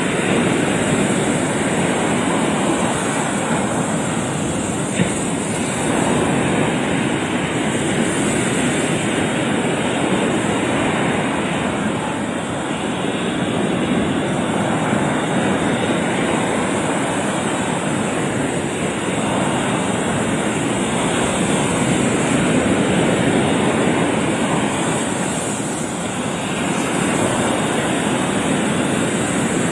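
Sea surf breaking and washing over a rocky shore: a loud, steady rush that swells and eases as the waves come in, with one short click about five seconds in.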